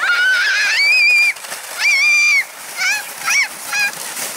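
A child's high-pitched shrieks: two long, held squeals followed by three short ones.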